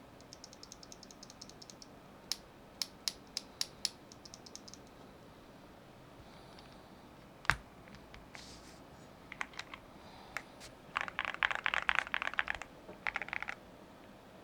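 Keys on a Cidoo V21 aluminium mechanical numpad being typed on: a quick run of light taps, then several single sharp keystrokes, one loud knock about halfway, and a fast flurry of keystrokes near the end.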